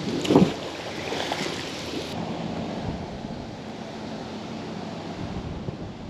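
Steady outdoor wind and water noise, with a short low thump about half a second in and a faint low hum from about two seconds on.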